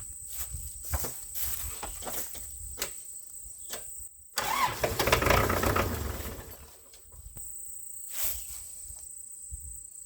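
Kubota L4200 tractor's diesel engine cranking on the starter, then catching about four seconds in with a loud surge that settles into a steady run. This is its first start after sitting for years.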